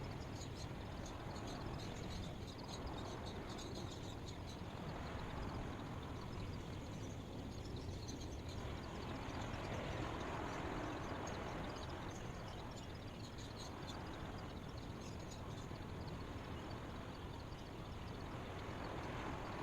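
Steady white-noise ambience: an even rushing hiss that swells and eases every few seconds, with faint, quick high chirps on top.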